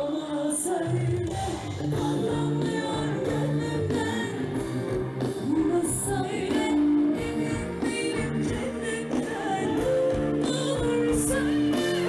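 Live pop band playing with a woman singing lead, holding long notes over guitar, keyboards and drums, with a cymbal crash now and then.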